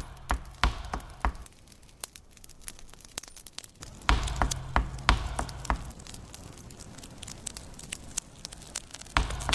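Irregular sharp clicks and crackles over a faint hiss. A low hum runs under them at the start, comes back about four seconds in for nearly two seconds, and returns near the end.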